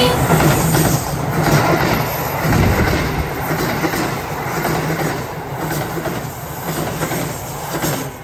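KiHa 85 diesel railcar running past close by, its wheels clattering over the rail joints over a steady low engine hum. The sound fades gradually toward the end.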